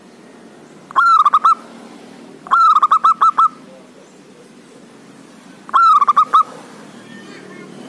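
Male zebra dove (perkutut) singing loudly: three cooing phrases, each an opening note followed by a quick run of short staccato coos, the second phrase the longest.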